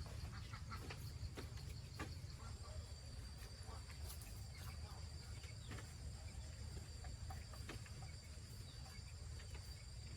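Insects, such as crickets, trilling steadily at a high pitch over a low background rumble, with a few scattered faint clicks.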